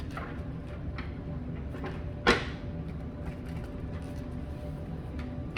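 Tarot cards being handled and shuffled: a few light taps and snaps, with a louder snap about two seconds in, over a steady low background.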